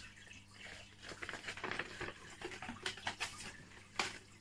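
Packaging being handled: irregular rustling and crinkling with scattered small clicks, and one sharper tap about four seconds in.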